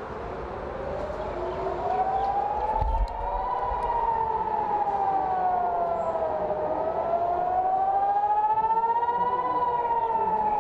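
Civil defense siren wailing, its pitch slowly rising and falling in a cycle of about six seconds. This rising-and-falling tone is the Israeli warning signal for an incoming attack.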